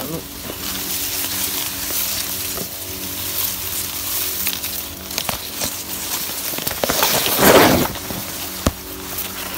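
Sugarcane leaves rustling and scraping against the microphone as it is pushed through dense cane, with scattered crackles and a louder rustle about seven and a half seconds in.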